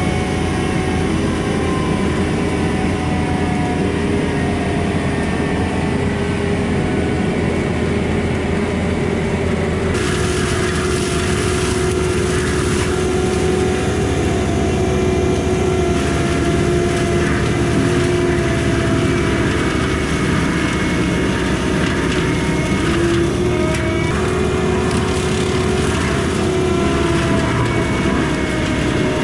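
Kubota skid steer's diesel engine running under load while its Bradco MM60 hydraulic drum mulcher spins, with a steady machine whine. The sound turns harsher and hissier about ten seconds in.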